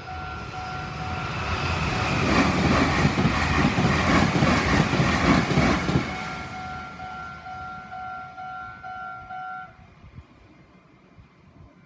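Japanese level-crossing alarm bell ringing in a steady rapid pulse while a Meitetsu Nagoya Main Line train passes over the crossing, its wheels clattering rhythmically over the rail joints. The train noise fades after about six seconds, and the bell stops near the end as the crossing clears.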